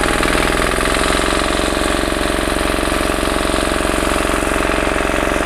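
Small engine driving a water pump, running steadily at an even idle-like pace as it draws water out of the fish pond through its suction hose.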